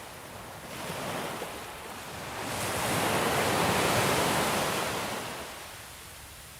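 Ocean waves breaking on a beach: a smaller wash about a second in, then a larger wave swells to a loud, hissing break in the middle and fades away as it recedes.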